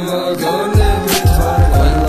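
Instrumental hip-hop beat: deep bass kicks that slide down in pitch, a snare hit about a second in, and held melody notes above.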